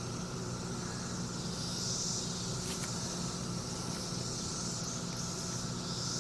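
Steady low hum with an even hiss over it, and a faint click a little before three seconds in.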